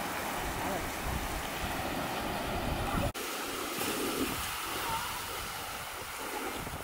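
Outdoor background noise with low wind rumble on the microphone, broken by an abrupt cut about three seconds in, after which the noise is thinner.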